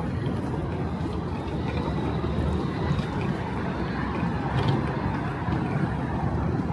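Steady low rumble of city street ambience, mostly road traffic, with a few faint ticks.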